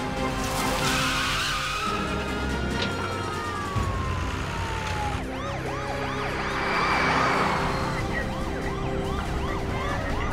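Police siren: a slow rising and falling wail that switches about five seconds in to a fast yelp, about three rises a second.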